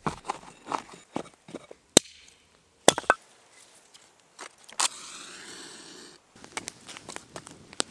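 Dry soil being scraped and scooped by hand, then split firewood knocking as pieces are dropped into the pit, with sharp wooden knocks about two, three and five seconds in. A steady hiss for about a second follows, then light crackling as the paper kindling catches.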